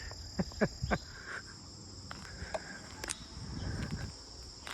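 A steady, high-pitched outdoor insect chorus, with a few short knocks or steps in the first second and another about three seconds in.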